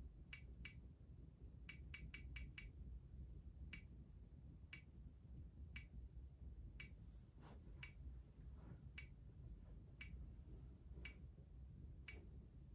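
Online spinner wheel ticking faintly through computer speakers as it turns slowly: a quick run of five ticks about two seconds in, then about one tick a second, over a low hum.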